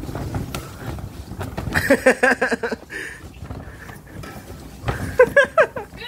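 Strong wind buffeting the microphone as a low rumble. About two seconds in and again near the end it is broken by quick, evenly spaced bursts of a voice.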